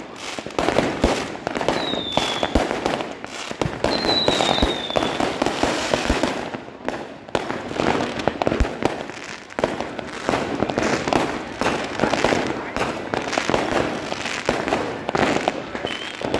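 Firecrackers going off in a dense, rapid string of sharp cracks, with brief lulls about six and nine and a half seconds in.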